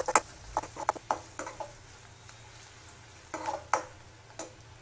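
Metal spatula stirring and scraping a tempering of chopped shallots, dried red chillies and curry leaves in hot coconut oil in a kadai, with a faint sizzle under it. Several quick scrapes come close together in the first second and a half, then a few more near the end.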